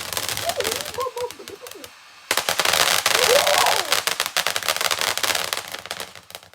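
Ground firework fountain spraying a stream of sparks with dense, rapid crackling, dipping briefly about two seconds in and then crackling loudly again. Two short wavering tones rise over the crackle. The sound cuts off abruptly at the end.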